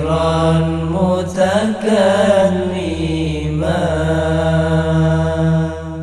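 Islamic devotional chant (sholawat): a voice sings long, drawn-out notes over a steady low drone.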